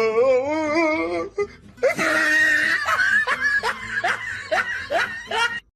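Laughter over music: a wavering high-pitched laugh at first, then a run of short rising laugh sounds about two a second. It cuts off abruptly near the end.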